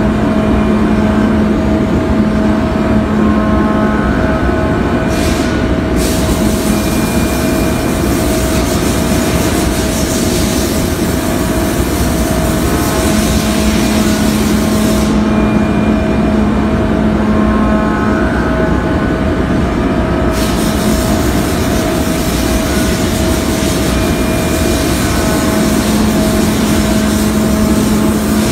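CNC milling machine cutting a metal boat propeller blade under flood coolant: a steady spindle and cutting tone with the hiss of coolant spray. A lower hum comes in for a few seconds at a time and drops out again, and the high hiss switches on and off in long stretches.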